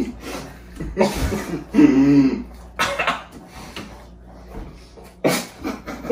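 Men coughing and laughing through mouthfuls of pizza, in a few short bursts.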